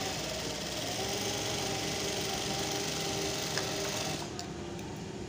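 Juki industrial sewing machine running a test seam through cloth: the motor's whine climbs as it speeds up over the first second, runs steadily, then stops about four seconds in.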